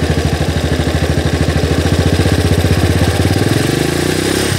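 Yamaha motorcycle engine running in neutral just after starting, a steady low pulsing beat; about three seconds in it revs up, rising in pitch, then drops back at the end.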